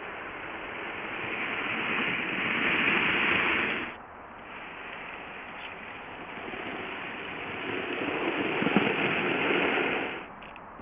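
Minitrains Brigadelok 009 narrow-gauge model locomotive running on the track, its motor and wheels making a steady noisy whir that grows louder as it approaches. This happens twice, each time cut off suddenly.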